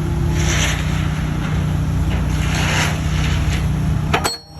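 Kubota SVL75-2 compact track loader's diesel engine running steadily, with two hissing surges and a sharp knock near the end.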